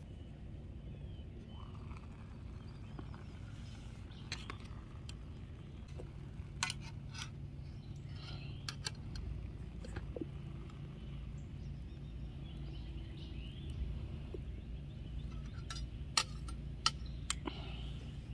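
A few sharp metallic clinks from a stainless steel cook pot and spoon being handled, in small clusters, over steady outdoor background noise with faint bird calls.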